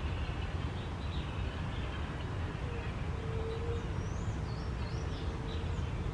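Faint, high, wavy chirps of small birds, a few about a second in and more between four and five and a half seconds in, over a steady low rumble. A faint steady hum joins about three seconds in.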